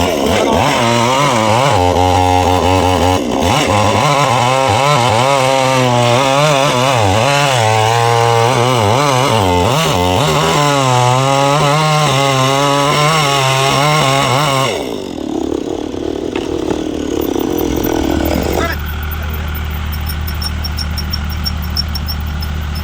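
Chainsaw running and cutting wood, its pitch rising and falling as the bar loads and frees, for about fifteen seconds. Then the saw stops and a lower, steadier engine hum carries on.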